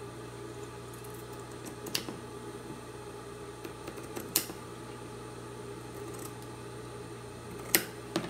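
Fabric shears cutting cotton fabric: about four separate sharp snips a couple of seconds apart, the loudest near the middle.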